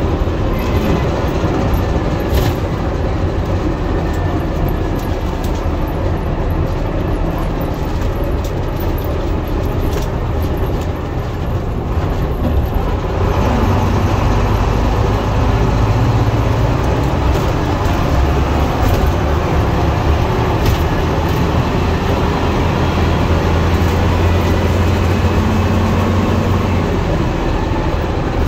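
Bristol VR double-decker bus under way, heard from the upper deck: its rear-mounted Leyland 501 six-cylinder diesel runs steadily, mixed with body rattles. The engine grows louder about halfway through.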